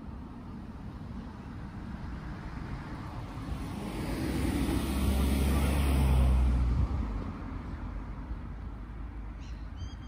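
A motor vehicle drives past on the road, growing louder to a peak about six seconds in with a low engine hum, then fading quickly.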